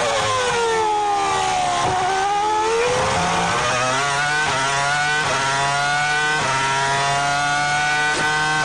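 Renault 3.0-litre V10 of the 2004 Renault R24 Formula One car, heard from the onboard camera. The revs fall for about two seconds as the car brakes and downshifts into a corner, then climb again with a short break at each upshift as it accelerates away.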